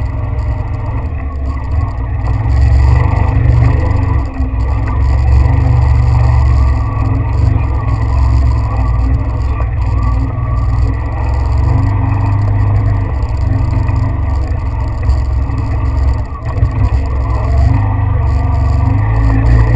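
A motor vehicle running as it drives along a trail, with a heavy, steady low rumble that dips briefly now and then.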